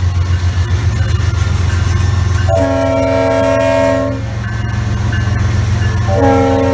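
Walt Disney World monorail's horn sounding a chord of several notes: one blast of under two seconds about two and a half seconds in, and a second that starts near the end, over a steady low rumble.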